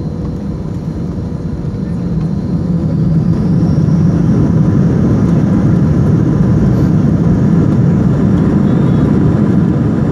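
Jet airliner engines heard from inside the cabin: a steady rumble that grows louder over a couple of seconds about two seconds in, then holds. This fits the engines spooling up to takeoff thrust as the plane lines up on the runway.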